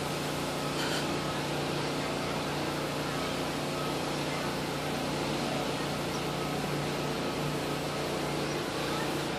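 Steady rush of water running over rocks into a pool, with a low steady hum underneath.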